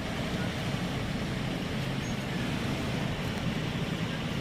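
Steady low vehicle rumble with no distinct events.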